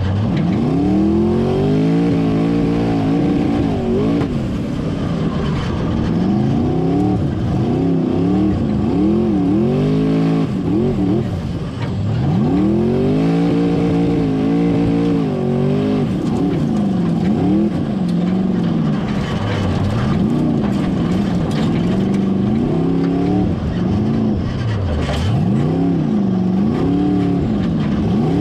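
Formula Offroad 4x4 competition car's engine heard from inside the cockpit, revving hard and falling back again and again as the car climbs the hill-climb track.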